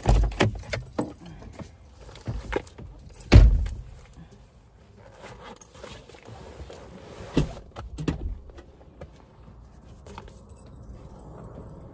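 Clicks, knocks and rustling of someone moving about in a parked car and climbing out of the driver's side, with a heavy thump about three and a half seconds in and sharper clicks later on.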